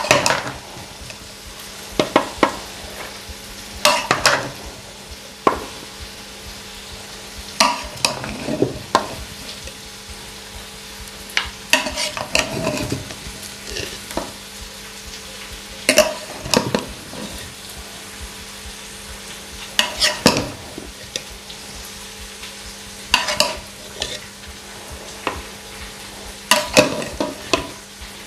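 Metal serving spoon scraping and clinking against an aluminium cooking pot as cooked biryani rice is scooped out and dished up, in short clusters every few seconds.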